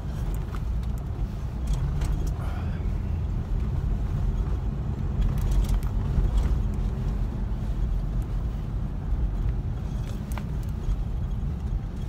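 Steady low rumble of a car, heard from inside the cabin, with a few faint clicks.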